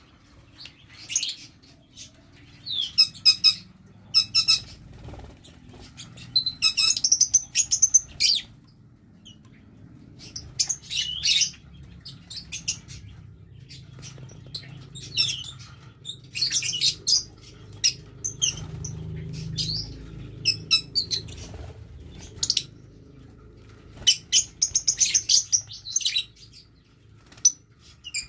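Lovebirds calling in repeated bursts of sharp, rapid, high-pitched chirps and chatter, several birds at once, with short pauses between the bursts.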